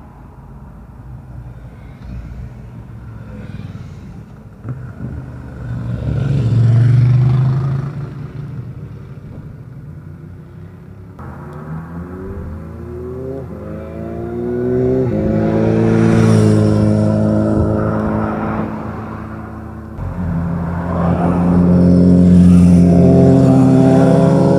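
Sport motorcycles riding past one after another, engines revving and climbing in pitch as they accelerate and shift up, each pass swelling and then fading. The last and loudest pass, near the end, is a Suzuki sportbike.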